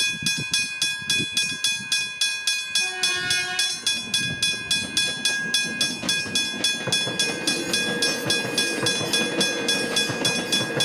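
Westinghouse hybrid railway level-crossing bell ringing steadily, about four strikes a second. A train horn sounds briefly about three seconds in, and a train's low rumble grows from about four seconds on.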